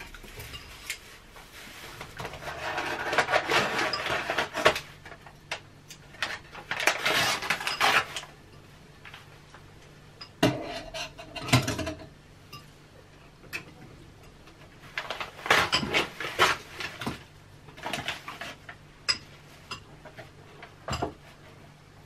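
Plastic bags, paper and foil wrapping crinkling and rustling in several bursts as packaged food is unwrapped by hand, with a few light clicks and knocks on the counter.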